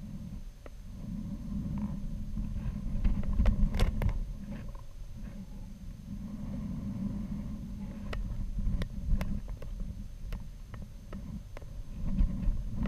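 Low, uneven rumble picked up by the onboard camera's microphone on a high-altitude balloon payload, with scattered clicks and creaks from the payload housing, loudest in a cluster about four seconds in and again near the end. A faint steady high whine runs underneath.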